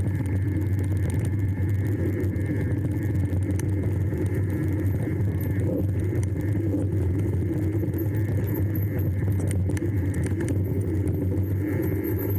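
Steady engine and road rumble of a moving vehicle, heard from inside it, with light rattling and jingling of loose objects.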